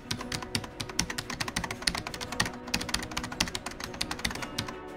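Rapid, irregular computer-keyboard typing clicks, used as a typing sound effect while text appears on screen, stopping just before the end.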